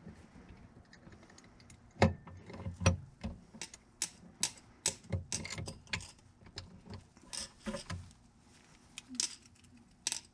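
Metal hand tools and hardware clinking and knocking irregularly while a replacement electric step motor is fitted to a motorhome's entry step. Sharp knocks start about two seconds in; the two loudest come close together near the start.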